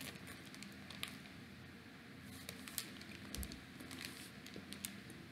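Faint handling of a plastic snack pouch of frosted animal cookies: soft crinkles and scattered small clicks, with one low thump about three and a half seconds in.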